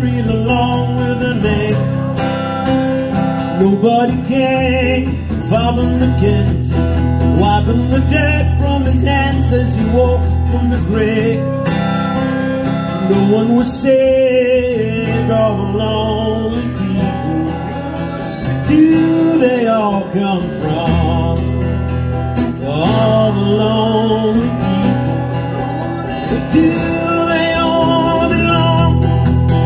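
Live acoustic band music: a flute plays over two strummed acoustic guitars, with steady low notes underneath.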